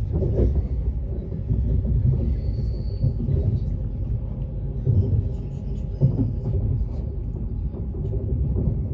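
Steady low rumble of a moving passenger train heard from inside the carriage, wheels running on the rails, with a few louder knocks and jolts: one just after the start and two around five and six seconds in.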